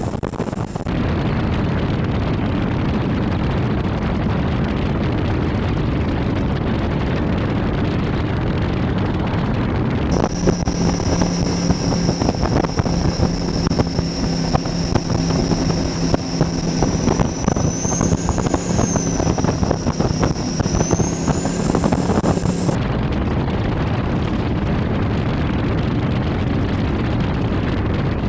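Skater powerboat running at speed, heard from onboard: engine noise mixed with rushing water and heavy wind buffeting the microphone. From about ten seconds in a steady engine note and a high whine are heard; the whine rises briefly twice, then both cut off abruptly.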